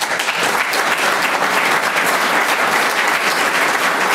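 Audience applauding: many hands clapping, breaking out suddenly and holding steady.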